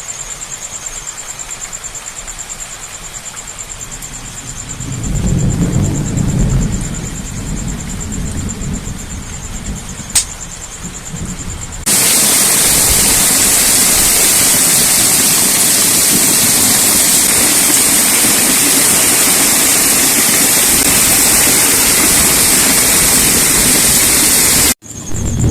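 Heavy monsoon rain falling, a steady hiss, with a low rumble about five seconds in. About twelve seconds in the rain becomes much louder and closer, a dense roaring hiss that cuts off suddenly near the end.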